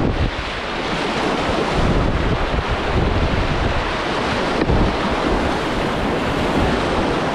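Whitewater rapids rushing loudly and steadily around a kayak, with low rumbling buffeting on the camera microphone.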